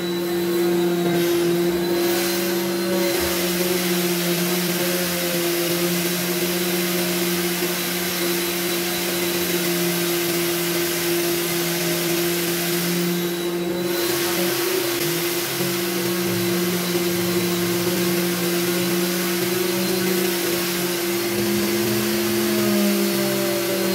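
Electric random orbital sander running steadily as its round pad sands the willow blade of a cricket bat. Its hum wavers in pitch a couple of times.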